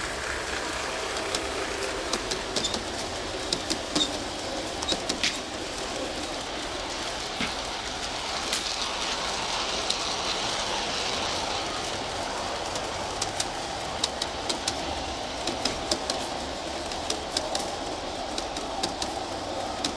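G-scale model freight train, pulled by two USA Trains NW2 locomotives, rolling past close by: a steady running rumble with many sharp, irregular clicks as the wheels cross the rail joints.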